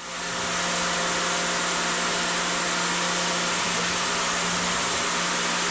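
Tormach 770 CNC mill's spindle driving a small end mill through aluminium on an adaptive roughing pass: a steady hum with a broad hiss over it. The sound fades in at the start and holds level.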